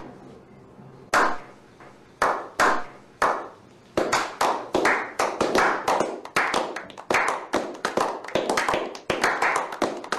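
A small group slow-clapping: single claps about a second apart at first, then from about four seconds in more hands join and the clapping becomes faster and denser.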